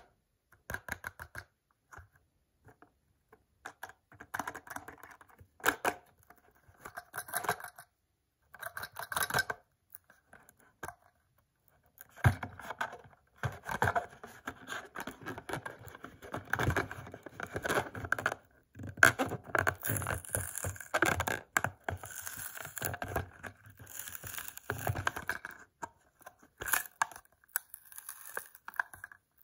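A sealed Hot Wheels blister card being handled: the plastic bubble and card crinkle and scratch in irregular clicks. It is sparse at first and becomes a busy run of crackling from about twelve seconds in until near the end.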